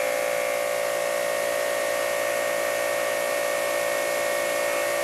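Ryobi 2700 psi electric pressure washer running with the trigger held open, motor and pump under full spraying load. A steady, rather loud, high-pitched whine over a hiss of spray.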